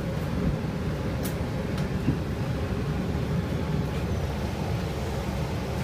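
Steady low rumble of a city bus heard from inside the passenger cabin: engine and road noise, with two faint rattling clicks about a second and a half in.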